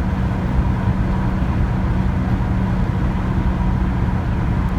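A VW bus's air-cooled engine running steadily at highway speed, with road and wind noise, heard from inside the cabin as a constant low drone.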